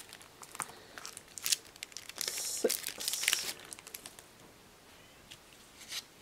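Hands handling board-game components and their packaging: scattered clicks and rustles, with a louder stretch of crinkling and tearing about two to three and a half seconds in.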